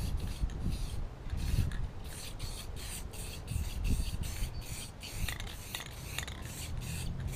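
A nearly empty aerosol spray-paint can giving short hissing spurts, several a second, as the last of the paint sputters out.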